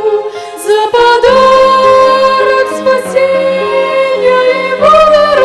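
Violin ensemble playing a slow hymn melody in long, held notes, moving to new notes about a second in and again near the end.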